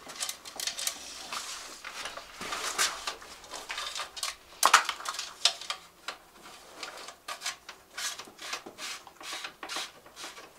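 Dropper-post cable housing being handled and pulled through a mountain bike frame's internal routing: scattered rubs, light clicks and taps, with one sharper knock about four and a half seconds in.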